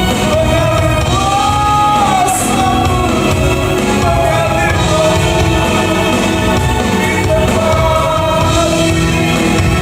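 Worship music in a large hall: voices singing long, held notes over a full instrumental accompaniment.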